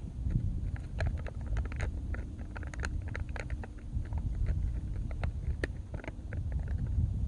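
Outdoor ambience: a steady low rumble of wind on the microphone, with many scattered sharp clicks and ticks at irregular intervals and a faint steady hum through the middle of the stretch.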